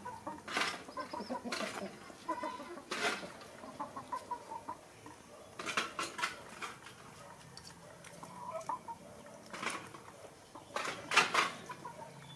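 A metal spoon clinking and scraping against a ceramic bowl of noodles: a few sharp clicks spaced a second or more apart, the loudest near the end. Short clucking calls sound in the background.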